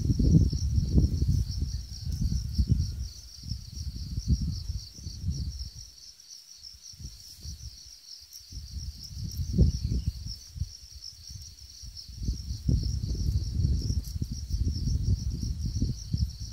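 A steady chorus of insects chirping in a fast pulsing trill. Under it run irregular dull low thumps and rumbling, which are the loudest sound and stop for a couple of seconds midway.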